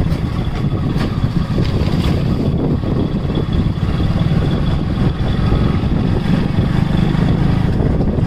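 Motorcycle engine running steadily while it is ridden along a road, with a dense low rumble throughout.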